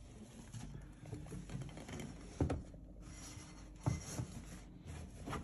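Fabric rustling as a cotton tea towel is handled over a bowl of proofing dough, with a few soft knocks, the loudest about two and a half seconds in and another near four seconds.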